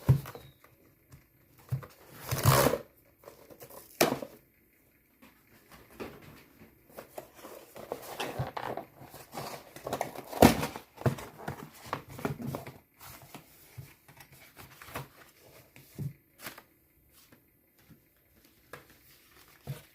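Paper-based phone-case packaging being handled and opened by hand: scattered crinkling and rustling of paper and cardboard, broken by sharp taps and clicks, the loudest rustle about two and a half seconds in and a sharp click about ten and a half seconds in.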